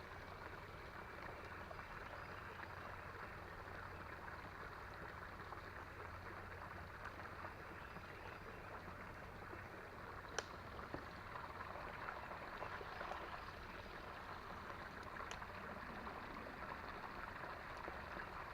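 Faint, steady rush of a small creek's running water, with two short sharp clicks partway through.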